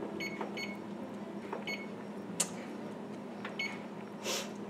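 Electric range's oven control panel beeping as its keys are pressed to set a 375° preheat: about four short, high electronic beeps. A sharp click about halfway through is the loudest sound.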